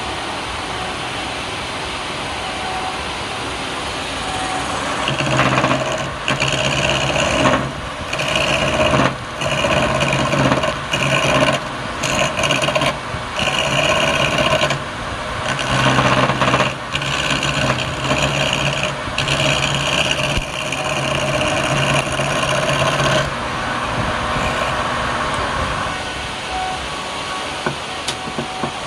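Wood lathe running, with a tool cutting into the spinning palm wood in repeated passes of a second or two, each pass adding a steady whine. The passes run from about five seconds in to about two-thirds of the way through, then the lathe settles back to a steady hum.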